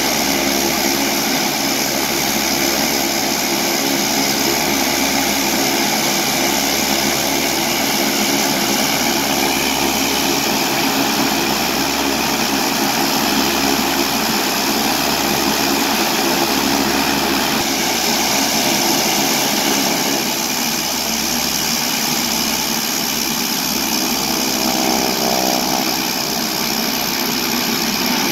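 Saab 340's twin General Electric CT7 turboprop engines running steadily at ground idle, a loud propeller-and-turbine drone, as the aircraft begins to taxi; the tone shifts slightly about two-thirds of the way through.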